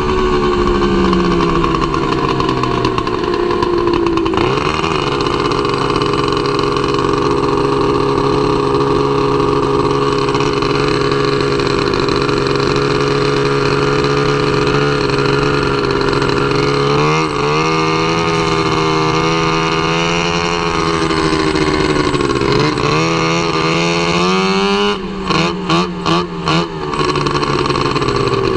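Race snowmobile engine heard from onboard. Its pitch falls over the first few seconds as it slows, then it runs steadily with a few rises and falls in pitch. Near the end the engine sound dips briefly four times in quick succession before it steadies again.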